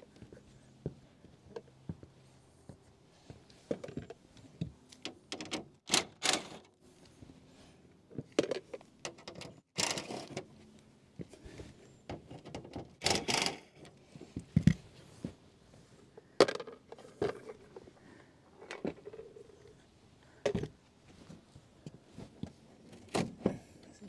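Scattered clicks, knocks and scrapes as screws are taken out of a rooftop RV air conditioner's plastic cover and dropped into a small plastic container. The cover is handled near the end.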